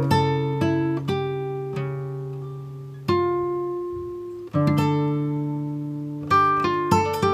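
Background music: plucked guitar-like notes and chords that ring and fade, with new chords struck about three, four and a half, and six seconds in.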